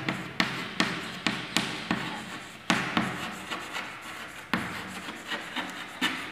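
Chalk writing on a blackboard: a run of sharp taps and short scratches as each letter is stroked on, about two or three a second.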